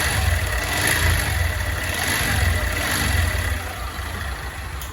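Honda CG 160 Start's single-cylinder engine running with the rattling engine noise its owner calls a "cascavel" (rattlesnake), which he suspects comes from a worn cylinder kit (piston and cylinder). The level falls off about three and a half seconds in.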